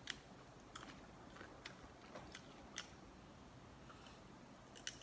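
Faint crunching of popcorn being chewed: sparse sharp clicks, about seven over the few seconds.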